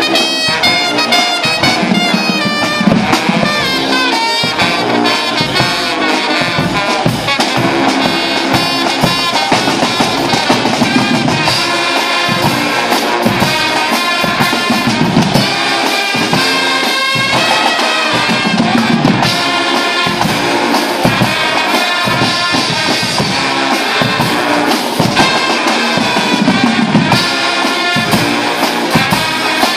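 A Guggenmusik carnival band playing live: a brass section of trumpets, trombones and baritone horns over a big bass drum, snare and cymbals, loud and without a break.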